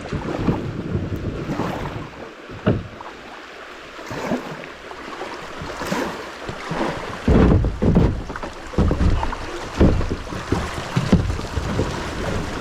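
Kayak paddling on a moving creek: irregular paddle strokes and water splashing. From about seven seconds in, gusts of wind rumble across the action camera's microphone.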